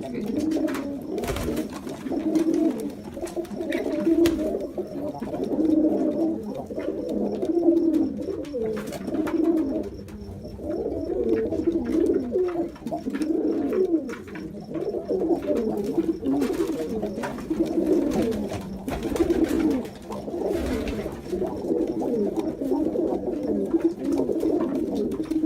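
Jacobin pigeon cooing: low, rolling coos repeated one after another every second or so, with a few faint clicks in between.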